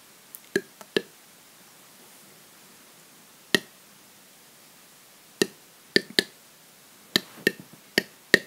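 About a dozen short, sharp knocks at irregular intervals, each sounding alike, with gaps of up to two seconds between some of them.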